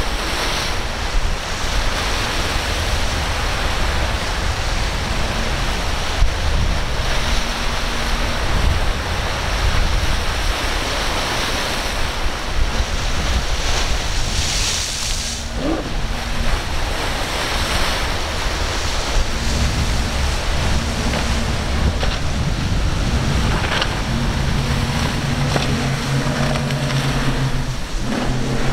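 Surf and wind buffeting the microphone, with the steady drone of a center-console boat's outboard engines running at speed through rough water. The engine grows stronger over the last third. A brief burst of hiss comes about halfway through.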